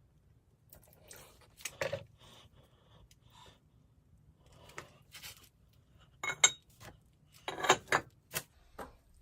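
Metal parts being handled: scattered clinks, knocks and scrapes, busiest and loudest from about six to eight and a half seconds in.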